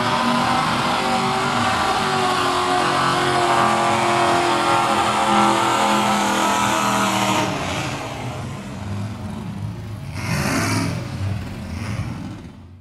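Lifted 1990 Ford Ranger mud truck's engine held at high revs through its hood-mounted exhaust stacks as it churns through the mud bog. About seven seconds in the revs drop and the sound gets quieter. A brief louder surge comes about ten seconds in, and the sound fades out at the end.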